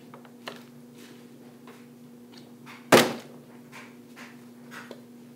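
A flipped plastic water bottle coming down with a single loud thunk about three seconds in.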